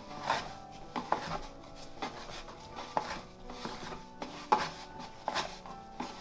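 Bread dough being worked by hand: irregular knocks and rubs against the work surface or bowl, about one every half second to a second. Soft background music plays underneath.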